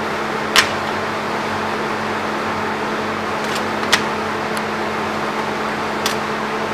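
Steady machine hum with a constant low tone, with three sharp clicks spread through it as CDs are handled.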